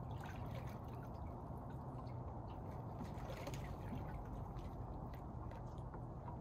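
Water lapping and trickling in a partly frozen pool, stirred by a swimmer moving under the ice, with faint drips and ticks over a steady low rumble.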